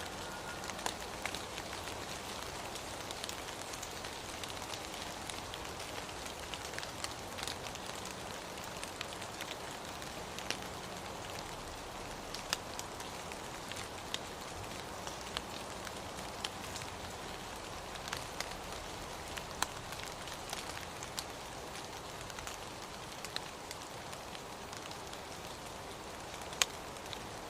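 Steady rain falling, with the sharp ticks of single drops landing close by at irregular moments.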